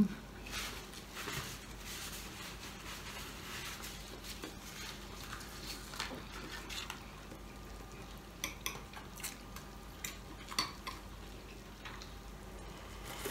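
Faint sizzling of pork sisig in a pan kept hot on a tabletop stove, under soft eating sounds. From about eight seconds in, a fork clinks against a glass bowl several times in quick succession.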